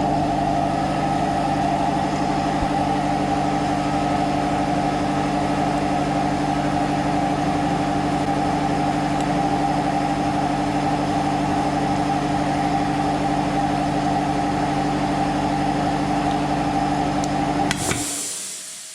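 A machine running steadily with a loud, even hum of several fixed tones, dying away near the end.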